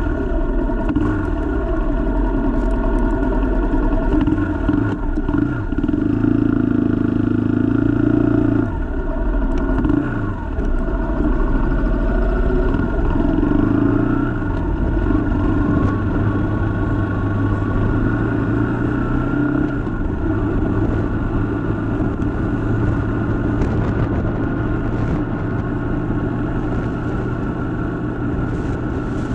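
Suzuki Gixxer 150's single-cylinder engine running as the bike pulls away and accelerates. Its note rises and drops in pitch several times during the first half, then holds steady.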